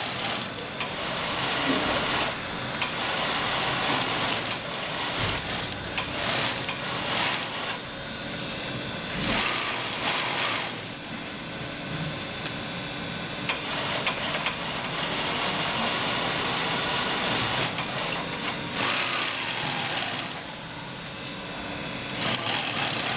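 Industrial sewing machine stitching fabric in several runs, over a steady din of factory machinery.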